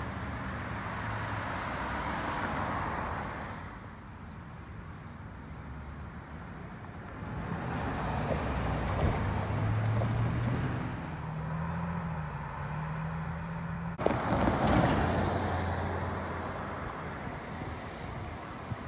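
Road traffic at a railway level crossing: several vehicles, among them a pickup truck crossing the rails, pass one after another, each a swell of tyre and engine noise.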